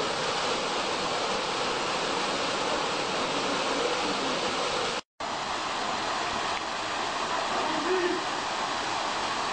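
Waterfall running: a steady, even rush of falling water. It drops out for a split second about five seconds in.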